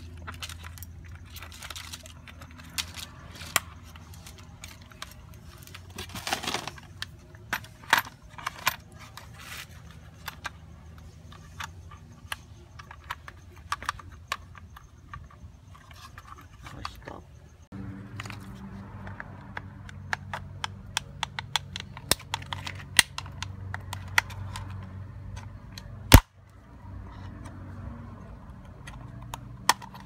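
Irregular plastic and metal clicks and rattles from a disassembled Lexus door lock actuator being handled and pried at its lever and housing with a small screwdriver, over a steady low hum. One sharp click near the end is the loudest.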